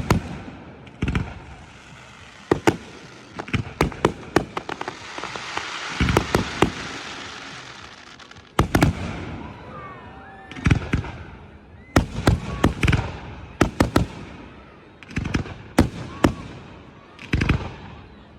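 Aerial fireworks bursting: clusters of sharp bangs every second or two, with a stretch of crackling about a third of the way through.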